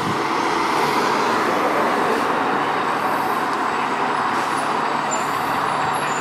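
Heavy fire engine driving by, a steady loud rush of diesel engine and road noise.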